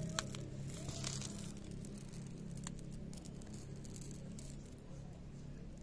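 Small decorative pebbles sprinkled by hand onto potting substrate, pattering as they land, with a few sharper clicks of stone on stone in the first few seconds.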